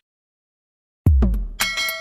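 Silence for about a second, then a sudden heavy bass hit as electronic music with a beat starts, and a notification-bell ding rings out over it: a subscribe-animation sound effect.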